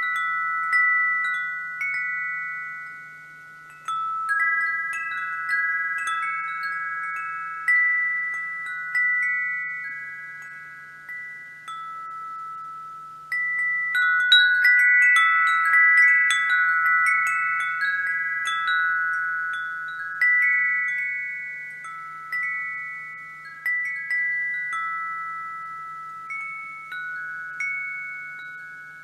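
Wind chimes ringing, struck at irregular moments, with several tones overlapping and each fading slowly. About halfway through, a flurry of strikes comes close together.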